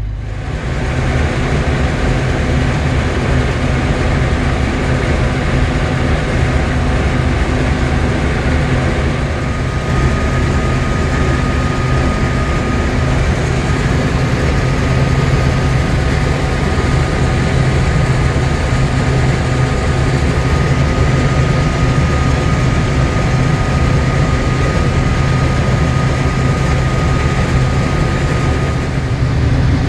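Combine harvester running steadily while harvesting corn, heard from inside the cab: a loud, even engine and machinery drone that rises in level about a second in, with a thin steady whine through the middle.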